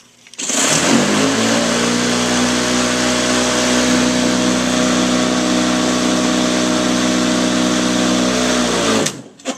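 Black & Decker electric lawn mower switched on, its motor and blade spinning up within about a second to a steady hum with a rush of air, then switched off near the end and winding down. It runs smoothly with its blade tightened; the earlier noise came from the loose blade, not from bad motor bearings.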